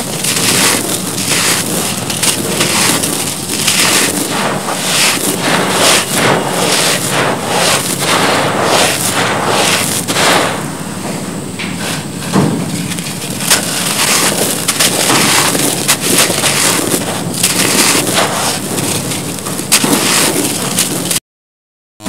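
Hands crushing and crumbling soft, gritty cement blocks into powder and grit: a dense run of close-up crunching and sifting crackle, cut off into dead silence for a moment near the end.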